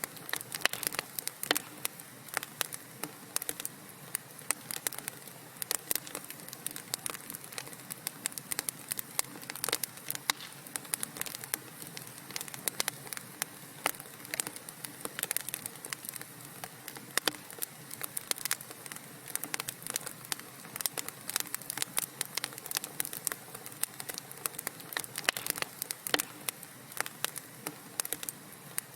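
Wood fire crackling in a fireplace: dense, irregular sharp pops and snaps over a soft steady hiss.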